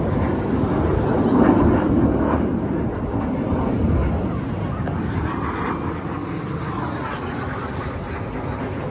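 Jet roar of a distant BAE Hawk T1 display jet flying past overhead. It is loudest about one to two seconds in and fades gradually after about four seconds.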